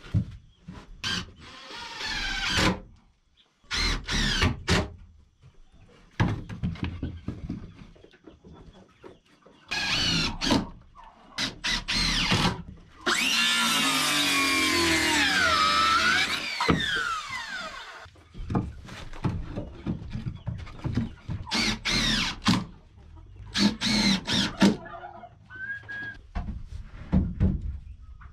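Makita cordless circular saw cutting through an old weathered board: a few seconds of loud, steady whine about halfway through, its pitch dipping as the blade bites. Before and after it, many short bursts of a cordless drill driving screws.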